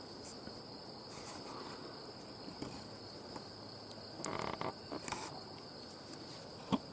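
Insects trilling steadily in a continuous high band. A couple of brief rustles come a little past the middle, and a short sharp click near the end.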